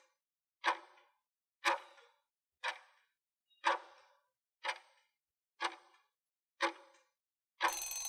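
Countdown-timer clock tick sound effect, one sharp tick about every second as the on-screen count runs down. Near the end the ticks give way to a longer ringing sound lasting about a second as the countdown runs out.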